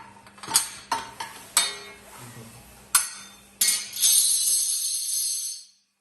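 Metal parts of a saw machine clinking as they are loosened and handled: five or so sharp clinks, then about two seconds of bright metallic jingling rattle that dies away near the end.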